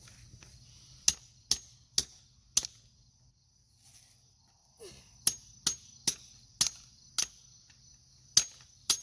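Hammer striking a chisel set against a geode in sharp metallic blows, roughly two a second. Four strikes come first, then a pause of a couple of seconds, then a run of about seven more. The rock is still holding.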